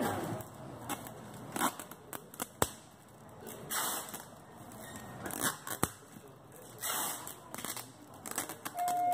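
Clear packing tape pulled off the roll in several rasping strips, about one every one and a half to two seconds, and pressed down over a shipping label on a cardboard box, with two sharp clicks between them. A short beep sounds near the end.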